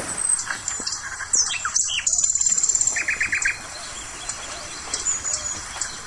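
Several small birds chirping and calling, with high trills, a few falling notes and a quick run of five notes about three seconds in, over the soft wash of small waves breaking on a sandy shore.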